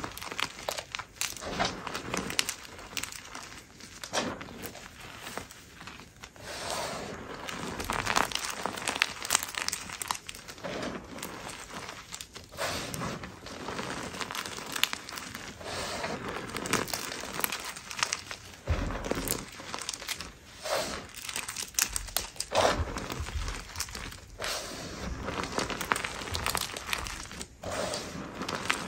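Hands squeezing and crushing loose gym chalk powder, giving a run of irregular, crumbly crunching and crackling as the packed chalk compresses and breaks apart in repeated squeezes.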